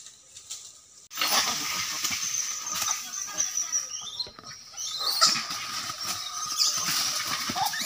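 Monkeys shrieking and squealing in a fight, breaking out suddenly about a second in and carrying on loudly.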